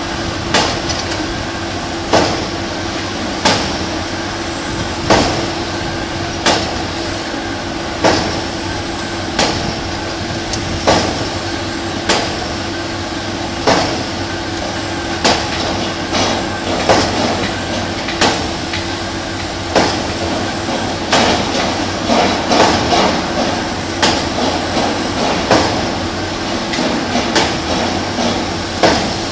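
Heavy construction machinery running steadily with a low drone, and a sharp bang about every one and a half seconds, like a heavy hammer striking, with a few extra knocks in between near the end.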